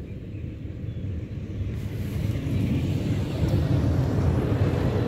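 Wind buffeting the microphone: an irregular low rumble that grows stronger about two seconds in.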